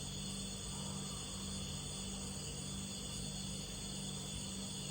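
Crickets calling in a steady, unbroken chorus, over a low steady hum.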